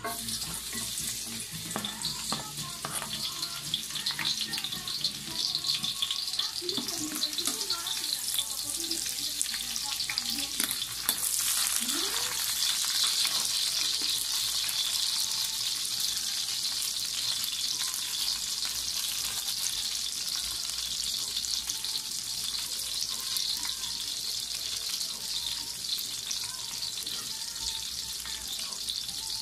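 Chopped garlic, onion and chili tipped into hot oil in a wok and sizzling steadily. The frying hiss grows louder about eleven seconds in.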